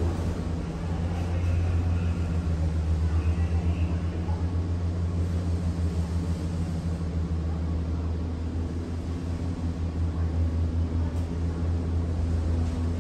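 Steady low rumble with a pulsing hum, the ride noise of a cableway gondola cabin moving along its cable.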